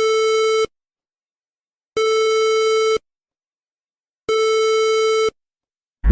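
Electronic alert tone sounding as three steady, buzzy beeps on one pitch, each about a second long with a second or so of silence between them.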